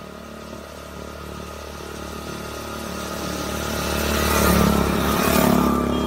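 A motor vehicle's engine running and getting steadily louder over about four seconds, then staying loud.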